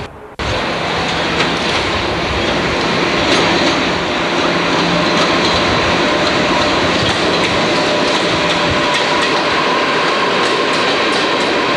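A train running on the rails: steady running noise with occasional sharp clicks from the wheels. It starts abruptly about half a second in.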